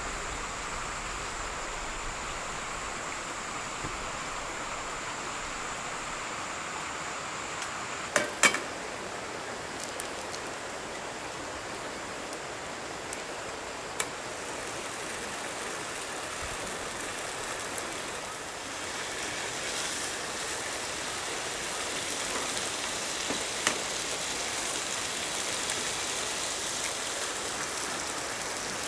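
Bacon sizzling in a frying pan on a camping gas stove: a steady hiss that gets louder about two-thirds of the way through, with a few sharp clicks.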